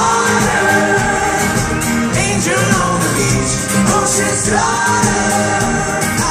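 Live pop-rock band playing, with electric guitars, drums and singing, loud and full as heard from the audience; held sung notes slide up and down a couple of times.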